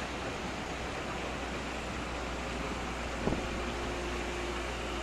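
XCMG excavator engine running steadily, with a faint steady whine joining about two seconds in and a single knock a little after three seconds in.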